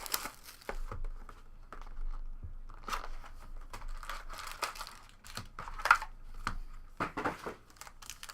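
Plastic wrapping crinkling and tearing as a hobby box of trading cards and its card packs are ripped open, in irregular rustles with a few sharper rips.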